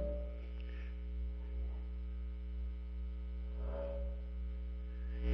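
Steady low electrical mains hum with no speech, with only faint traces of other sound about four seconds in.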